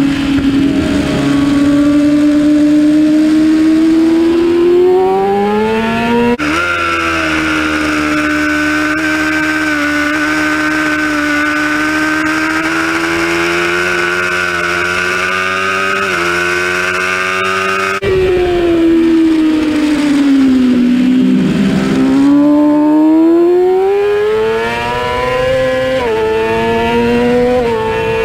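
Onboard engine sound of 600cc inline-four racing motorcycles at speed. First a Yamaha R6 revs rise as it pulls out of a corner. About 6 s in the sound switches to a Honda CBR600F held at high revs with small upshift steps. About 18 s in it switches back to the R6, whose revs fall as it slows, then climb again through two upshifts near the end.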